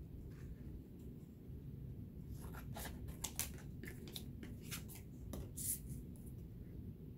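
Thin box cardboard being worked by hand: a quiet run of short, crisp scratching strokes. They start about two and a half seconds in and stop about a second before the end.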